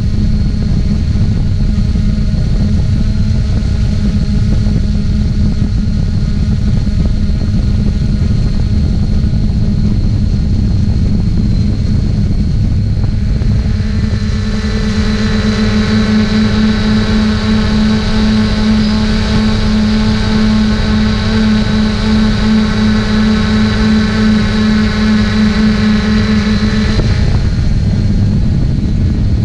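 3DR Solo quadcopter's electric motors and propellers running in flight, heard from the GoPro mounted on the drone: a loud, steady hum with a layered whine. It grows louder and fuller about halfway through and eases back near the end.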